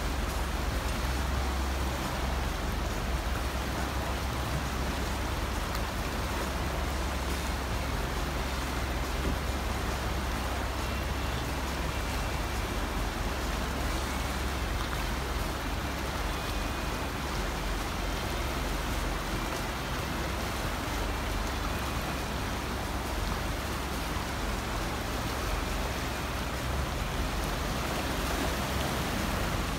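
Fast river water rushing over stones: a steady, even rush with a low rumble underneath.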